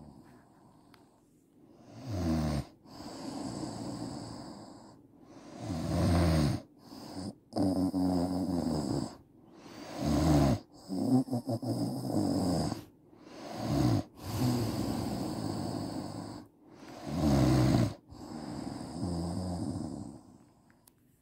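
A woman snoring heavily in her sleep, with a loud juddering snore about every four seconds and a breathy rush of air between snores.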